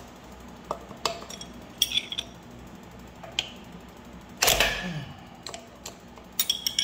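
Steel wrenches clinking and clicking against the rear sprocket bolts of a Coleman mini bike as a socket wrench and a combination wrench are fitted and forced on the very tight bolts. A louder clank with a short falling creak about four and a half seconds in, as a bolt is forced loose.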